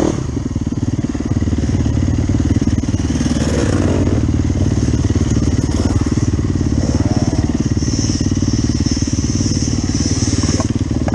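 Dirt bike engine running steadily close up as the bike rides along a dirt trail, with a few brief rises and falls in pitch.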